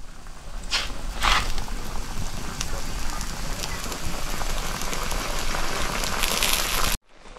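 Food cooking over a wood fire: a steady hissing, sizzling noise with two sharp cracks about a second in, cutting off suddenly near the end.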